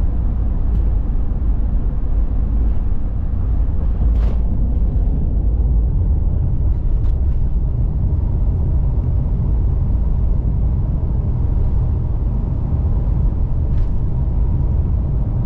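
Pickup truck driving on the highway: a steady low rumble of road and engine noise, with one brief click about four seconds in.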